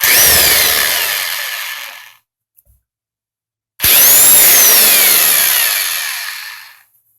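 Chicago Electric (Harbor Freight 68099) half-inch corded electric impact wrench run twice with no load: each time the motor whines up quickly and then winds down with falling pitch as the trigger is released. This is its first test run.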